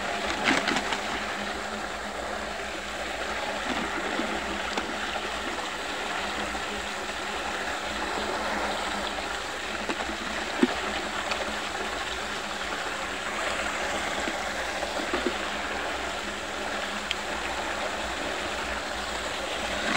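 Steady rushing and gurgling of water swirling into a whirlpool and draining down a hole, with a few small clicks and a sharper one about halfway through.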